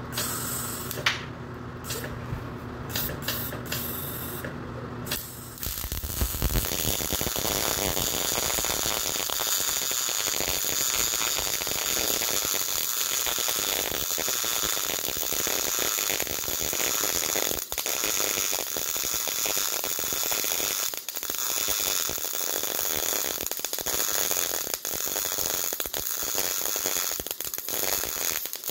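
MIG welding arc on 1/4-inch steel, a steady dense crackle that starts about five seconds in, after a low hum and a few clicks. The welder is deliberately set wrong for this bead, with the wire speed turned down, so the weld lacks amperage.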